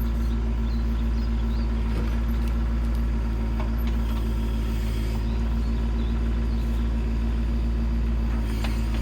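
A machine's engine running steadily at a constant speed, a low drone with a few faint ticks over it.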